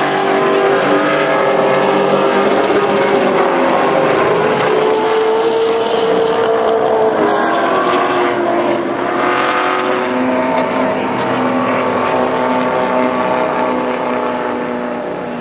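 Pro Late Model stock cars racing past, their V8 engines running hard together, overlapping engine notes rising and falling in pitch as the cars go by.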